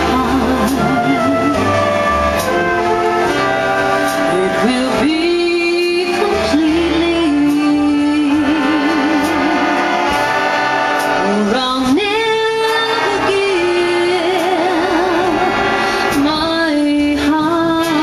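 Live big band playing a 1940s swing number with a woman singing the lead, her long held notes carrying a wide vibrato. Saxophones, brass, upright bass and drums play behind her.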